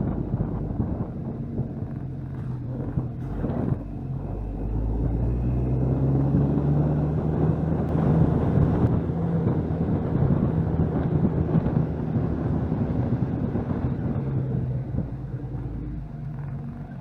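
Jeep Cherokee XJ driving: steady engine drone with tyre and road rumble, the engine note rising a little about five seconds in and easing back near the end.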